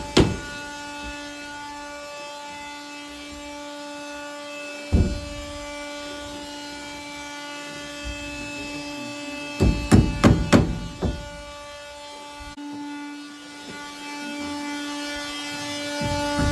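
Hammer blows: one strike about five seconds in, then a quick run of about six strikes around ten seconds, over a steady hum.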